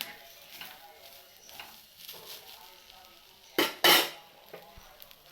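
Kitchen utensils clattering against a cooking pot: two short, sharp noisy bursts about three and a half seconds in, with faint background music under them.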